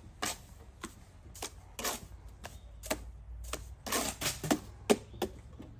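Steel mason's trowel scraping and tapping mortar on a mortarboard: a string of irregular sharp clicks and short scrapes.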